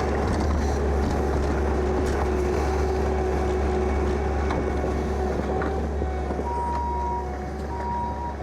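Engine of a heavy vehicle or machine running steadily with a strong low hum. Near the end a reversing alarm starts beeping, about one beep a second.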